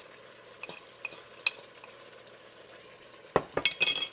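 Beef pieces frying with a faint steady sizzle in a stainless steel pot while a wooden spoon stirs them, with a few light clicks. Near the end comes a quick run of loud knocks with a metallic ring.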